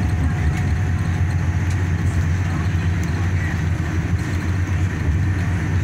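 Road noise of a moving vehicle heard from inside: a steady low engine and road rumble with a hiss over it.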